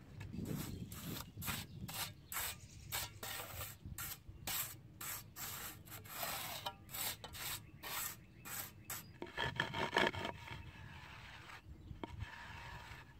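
Pointing trowel scraping and smoothing a damp sand bed for pavers in quick repeated strokes, about two or three a second, with one longer, louder scrape about ten seconds in.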